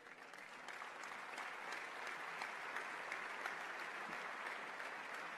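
Audience applauding: many hands clapping together, swelling over the first second and then holding steady.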